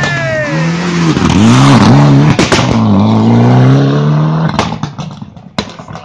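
Mitsubishi Lancer Evolution X rally car's turbocharged four-cylinder engine through a hairpin: the revs dip and wobble as the driver lifts and turns in, then climb steadily as the car accelerates away. The sound fades near the end, with a few sharp cracks.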